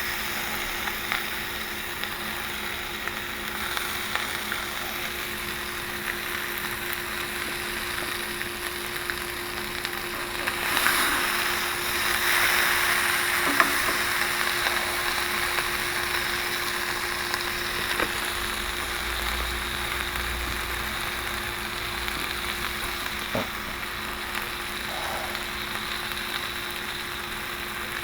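A buttered grilled cheese sandwich sizzling as it fries, with a few light clicks along the way. The sizzle grows louder about eleven seconds in, then gradually eases.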